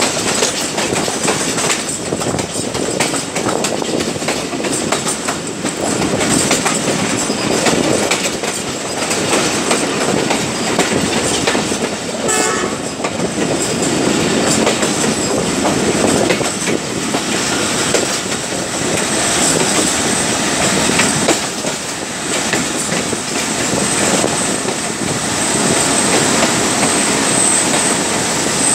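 Passenger train coaches rolling on the track, heard from an open carriage door: a steady rumble with wheels clattering over rail joints and points as the train runs into a station.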